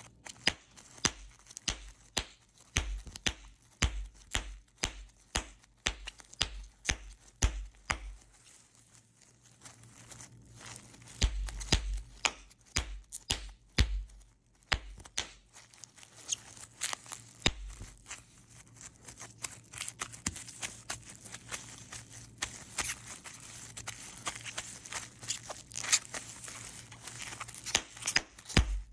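Bubble wrap being popped between fingers: sharp pops about two a second for the first several seconds, then a few scattered louder pops, and later many small, quick pops with crinkling plastic.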